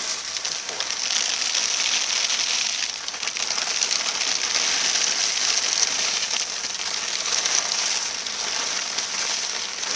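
Small red lava rocks pouring from a plastic bag into an upright plastic drain pipe: a continuous rattling patter of stones hitting plastic and each other, with a short lull about three seconds in.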